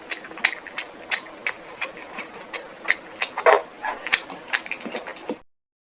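Close-miked chewing with wet mouth smacks and clicks at a few per second, one louder smack partway through. It cuts off abruptly to silence near the end.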